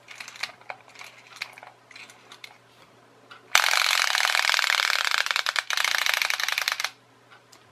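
Clockwork spring motor of a wind-up toy shark running: after a few faint clicks, a loud, fast rattling whirr starts suddenly as it drives the flapping tail, and cuts off abruptly about three seconds later as the spring runs down.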